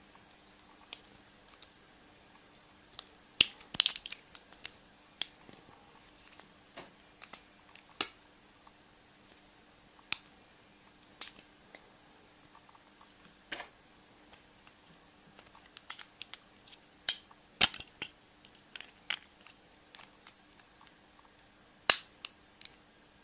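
Scattered sharp clicks and crackles at irregular intervals, a few much louder snaps among them, from hands handling chocolate surprise eggs: foil wrappers, chocolate shells and plastic toy capsules.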